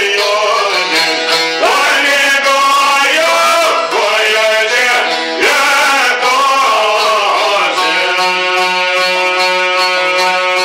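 A man singing an Albanian folk song in an ornamented, gliding style, accompanied by plucked long-necked lutes. About eight seconds in he settles on one long held note over the strumming.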